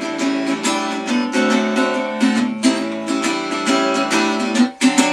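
Guitar strumming a blues chord pattern in a quick, even rhythm, with a brief break and a hard strum near the end.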